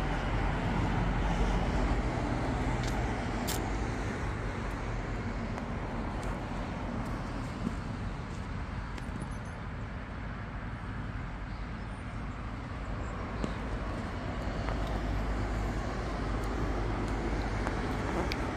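Road traffic on a wet road: cars passing make a steady rushing noise with a low rumble, swelling at the start and near the end and easing off in the middle.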